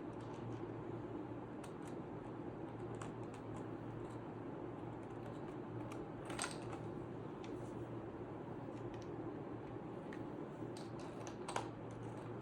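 Scattered plastic clicks of keycaps on a Redragon K530 Pro mechanical keyboard as new keycaps are fitted onto the switches, with two louder clicks about six and eleven and a half seconds in. A steady low hum runs underneath.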